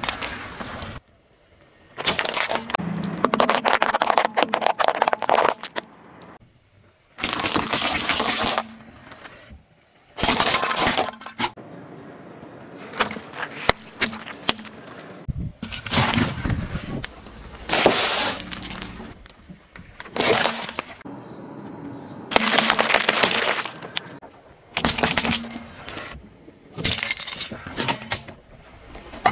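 A car tyre rolls over and crushes small objects, among them steel hex nuts and a water-filled balloon that bursts. It makes a run of about a dozen separate crunching and cracking sounds, each a second or two long, with abrupt cuts between them.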